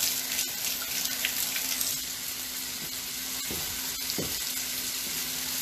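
Halved Brussels sprouts searing in a hot pan with their marinade: a steady frying sizzle over a low, steady hum.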